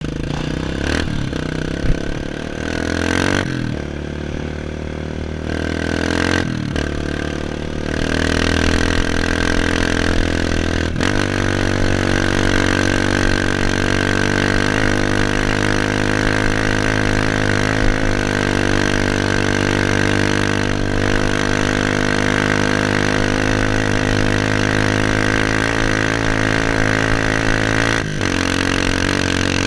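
Trail motorcycle engine running under way. It revs and changes pitch through several gear changes in the first ten seconds or so, then holds a steady pace, easing off briefly twice near the end, over a steady rushing noise.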